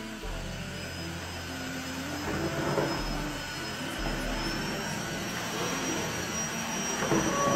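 Tineco Floor One S3 cordless wet-dry floor vacuum running as it sucks up and mops a mess off a tiled floor: a steady rushing motor noise with a thin high whine that rises slightly about five seconds in.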